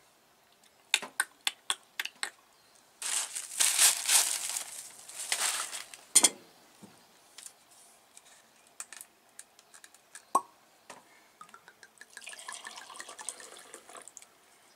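Red wine poured from a bottle into a small drinking glass near the end, a soft splashing with a faint rising tone as the glass fills. Before that come a few sharp clicks of tableware and a loud few seconds of rustling, with a single knock about six seconds in.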